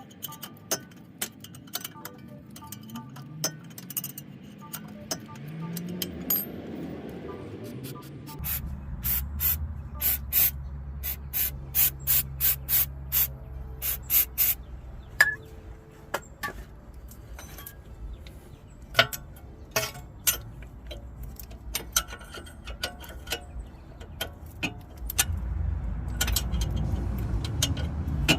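A run of sharp metallic clicks and knocks from hand tools working on a car's front wheel hub, most tightly bunched between about 9 and 15 seconds in, over a steady low hum.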